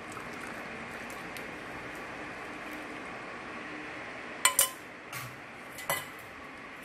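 A metal spoon clinks against a vessel as the tea is stirred. There are two quick clinks close together about four and a half seconds in, then two more over the next second and a half, over a steady hiss.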